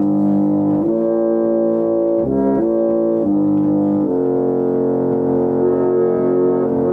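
Crane & Sons foot-pumped reed organ played loud with all stops open: a run of sustained chords changing several times in the first four seconds, then one chord held for the rest.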